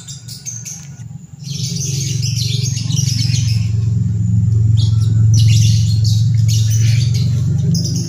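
Birds in an aviary, among them lovebirds and starlings, chirping in several short stretches over a steady low hum that starts about a second and a half in and is the loudest sound.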